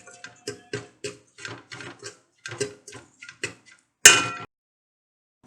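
Metal spoon stirring and scraping a frying spice mixture in a pan, a run of short clicks and scrapes. About four seconds in comes one louder metallic clang with a short ring, then the sound cuts off.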